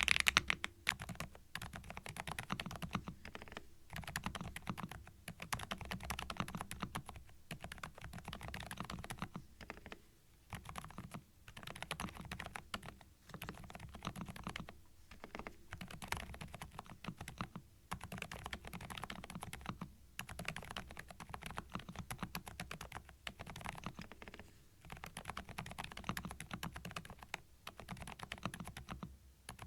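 Thinkway TV88 tenkeyless mechanical keyboard being typed on continuously, a fast patter of key strikes in runs broken by brief pauses of about a second.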